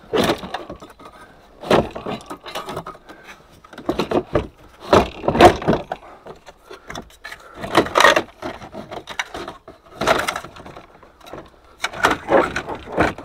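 Hard plastic parts of a Fiat 500's dashboard being handled and pulled loose by hand. Irregular clicks, knocks and rattles come in short clusters every second or two.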